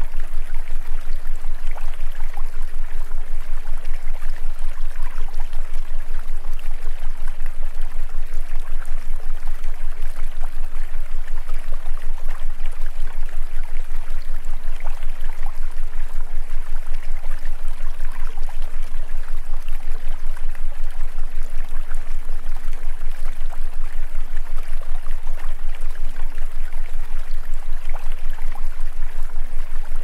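Steady rushing of running water, like a stream, over a low steady hum.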